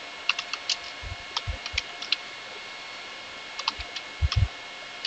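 Computer keyboard keys clicking as a terminal command is typed, in two quick runs of keystrokes with a pause of about a second and a half between them; a few strokes land heavier, with a dull thud.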